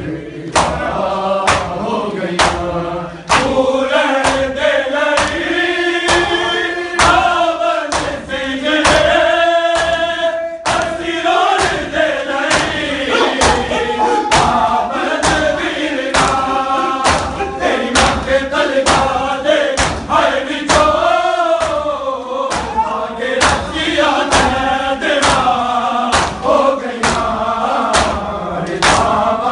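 Male voices chanting a Punjabi/Urdu noha (Shia mourning lament) in a melodic recitation. A steady beat of hands slapping bare chests (matam) keeps time with it.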